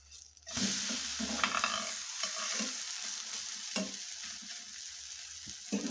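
Vegetable paratha sizzling in a hot oiled nonstick pan, the sizzle starting suddenly about half a second in as the flipped paratha lands, then easing off slowly. A few short taps come near the end.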